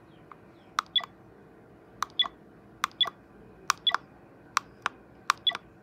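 Kimire digital camcorder's buttons pressed to step through recorded clips in playback mode: six presses, each a pair of sharp clicks with a short high beep from the camera on the second, roughly one press every second.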